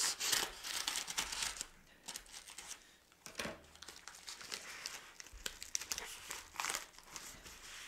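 Scissors cutting into a padded paper mailer, then the mailer being torn and pulled open by hand: irregular bursts of paper crinkling and tearing.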